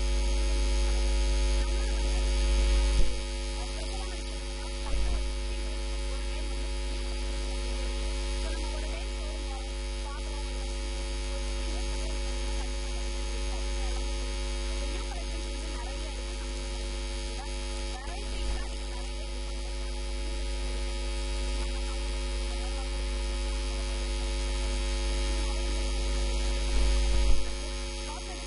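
Steady electrical mains hum with a stack of steady overtones, strongest at the very bottom of the range. It is broken by brief louder bumps about three seconds in, five seconds in and near the end.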